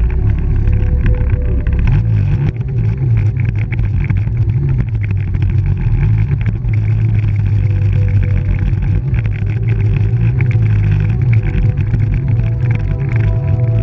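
Snowmobile engine running close to the hood-mounted camera as the sled moves off at low speed: a steady low drone with slight swells of throttle.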